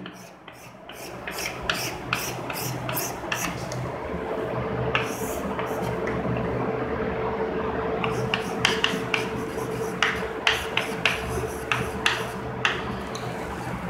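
Chalk scraping and tapping on a blackboard: quick hatching strokes in the first few seconds, then shorter handwriting strokes later on.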